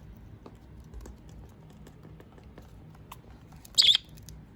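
Pet budgerigars: faint scattered clicks and taps, with one short, high chirp near the end.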